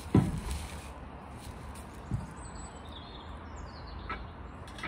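Outdoor background with a loud low thump right at the start and a smaller one about two seconds in as the stove flue pipe is handled in its roof collar, plus a few faint bird chirps.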